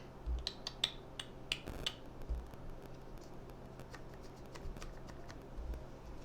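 A quick run of light, sharp clicks and taps in the first two seconds, then a few sparser ones, with occasional soft low thumps over a faint steady hum.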